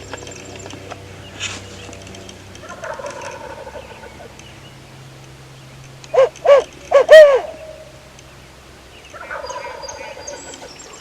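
Wild turkey gobbler gobbling: rattling gobbles about three seconds in and again near the end, with a loud run of four short, sharp calls about six seconds in.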